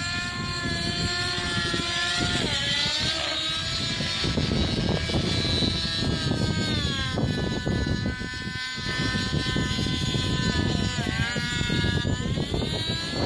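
TSA Infusion 600N Pro nitro RC helicopter in flight: its two-stroke glow engine and rotors make a steady high-pitched whine over a low rumble. The pitch dips and climbs back twice, about two and a half seconds in and again about eleven seconds in.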